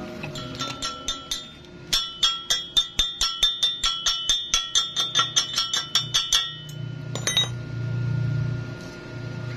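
Steel chipping tool knocking slag off a freshly welded steel fillet joint, with rapid sharp metallic taps at about five a second for several seconds and the plate ringing with each strike. A few scattered taps come first, and a couple of last knocks follow after a pause.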